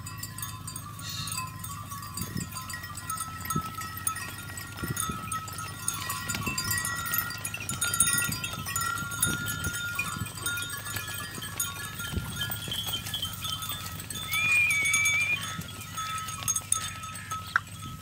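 A mixed flock of sheep and goats on the move, their hooves shuffling and thudding on a dirt track, with a short high-pitched call about three-quarters of the way through.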